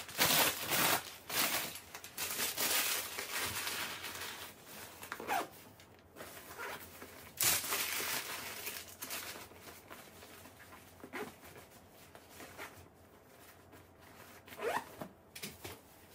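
Paper crinkling and rustling as it is stuffed into a snowmobile jacket's pockets, with the jacket's fabric rustling and the pocket zippers pulled a couple of times.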